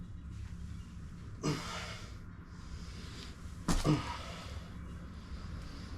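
A man breathing hard between squat reps, with two forceful exhalations about two seconds apart, the second the loudest, over a steady low hum.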